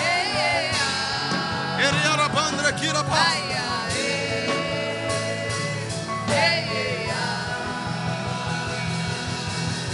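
Worship music: a voice singing or vocalising with wavering, sliding pitch over steady sustained instrumental chords and a low bass.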